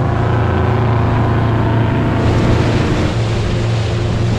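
Motorboat engine running with a steady low drone, joined about two seconds in by a rushing hiss of wind and water.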